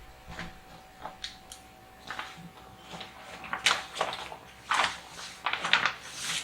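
Packaging being opened by hand: scattered crinkles, rustles and light knocks of a box and its paper wrapping, coming thicker and louder in the second half.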